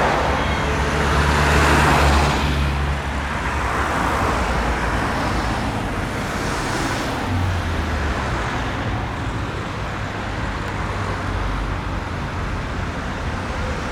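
Turboprop engines and propellers of a Lockheed KC-130J Hercules running at a distance: a steady rushing drone with a low propeller hum, loudest in the first two seconds, then easing off.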